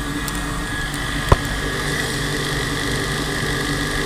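Vertical inline centrifugal water pump running: a steady electric-motor hum with a thin high tone over it. A single sharp click about a second in.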